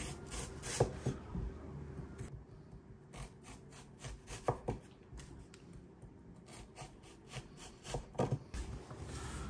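Chef's knife slicing an onion thinly on a wooden cutting board: uneven, quick knocks of the blade through the onion onto the wood, a few of them louder.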